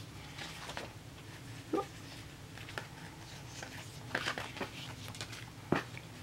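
Paper sticker sheets being shuffled, gathered and stacked by hand: soft rustling with scattered light taps, a busier rustle about four seconds in, and a few short knocks.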